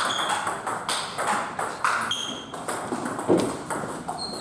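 Table tennis rally: a plastic ball clicking back and forth, struck by rubber paddles and bouncing on the table.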